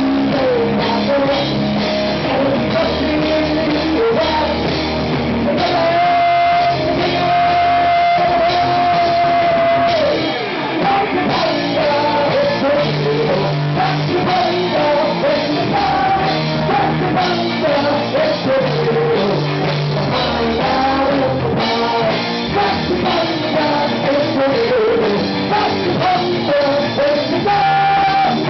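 Live rock band: a cello played standing, with a drum kit and singing. The melody holds one long note about six seconds in, then moves on.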